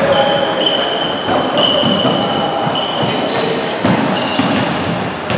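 Basketball being bounced and sneakers squeaking on a hardwood gym floor during play, the squeaks overlapping one another at several pitches.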